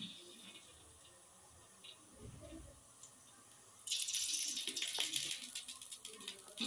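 Faint small clinks at first, then a steady rushing hiss like running water starts suddenly about four seconds in.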